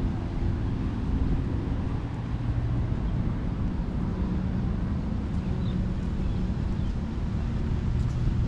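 Steady low engine rumble, holding an even pitch throughout.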